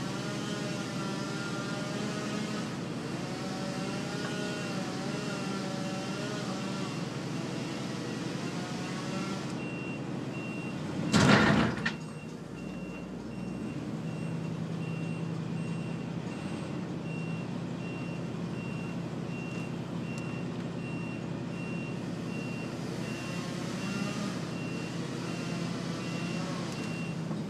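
Vehicle engine running with a reversing alarm beeping steadily from about ten seconds in. A loud crash lasting about a second comes about eleven seconds in.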